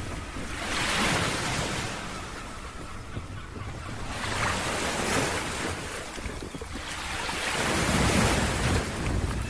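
Ocean surf breaking on a beach, the rushing noise swelling three times as waves come in, with wind rumbling on the microphone.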